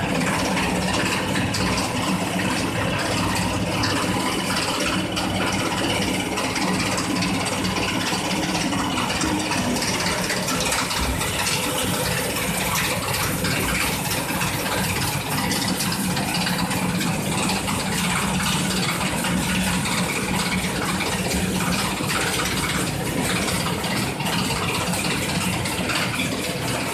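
Sugar packing machine running steadily, a constant mechanical hum with no pauses.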